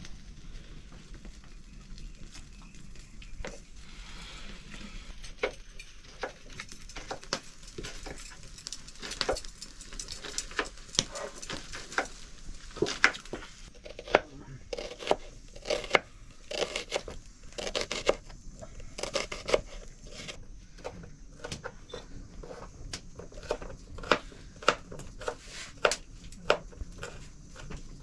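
Kitchen utensils knocking and clinking irregularly: a run of sharp, separate hits that grows busier and louder after the first few seconds.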